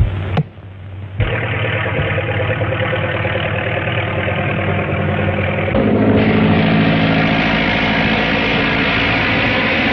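Propeller airplane engine droning steadily, broken off briefly near the start; about six seconds in its tone shifts lower and fuller.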